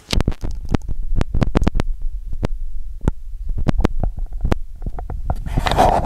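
Microphone handling noise: a dense run of low thumps and crackling clicks as the microphone is moved about, ending in a louder rustle of cloth against it.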